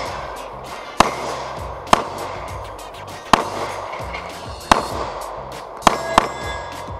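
Funk background music with about six sharp, loud pistol shots at uneven intervals, two of them in quick succession near the end.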